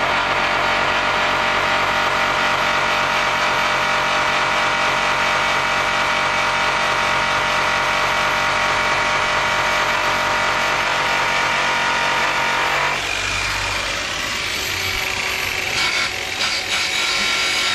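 DeWalt DWP849X variable-speed polisher running steadily, its spinning buffing pad working against a metal wheel. About thirteen seconds in the motor is switched off and the steady whine stops, followed by a few knocks as the tool is set down.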